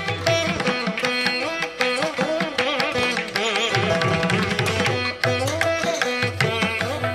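Instrumental background music in an Indian classical style: a plucked string melody with bending notes over hand drums.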